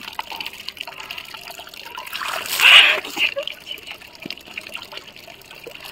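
Water trickling steadily, with a louder splash about two and a half seconds in as a mugful of water is poured over a bather's body.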